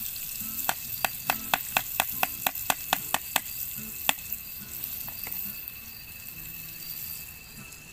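A cooking utensil knocking quickly and evenly, about a dozen sharp strikes at roughly four a second, then one more a moment later, over a faint steady hiss.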